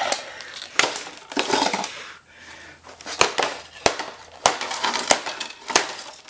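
Small hammer striking the screen of an LG LCD monitor, cracking and breaking up the glass panel: a series of sharp blows, coming about every half second in the second half, with crunching and crackling of broken glass between them.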